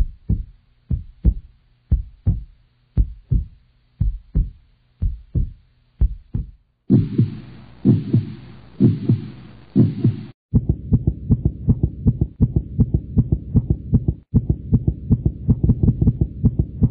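Heartbeat sound effect: a slow double thump about once a second, with a hiss joining in about seven seconds in. About ten seconds in the beat speeds up sharply into a fast pulse.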